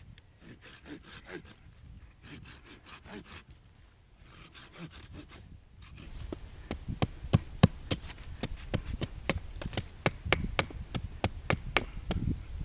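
A folding pruning saw cutting through an oak branch in soft, repeated strokes, then, about six seconds in, a Gerber Gator pack hatchet striking down along the upright oak stick to shape it, sharp wooden knocks about three a second.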